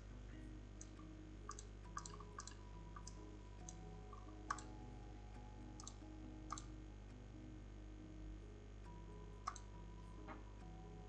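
Computer mouse clicks: about a dozen sharp, irregular clicks, some in quick pairs, the loudest about halfway through. Faint background music plays under them.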